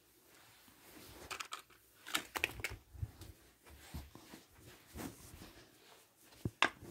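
Light handling noises: scattered clicks, taps and rustles as a phone is carried about and a small white bowl is picked up, with a cluster of taps a second or two in and a sharp click near the end.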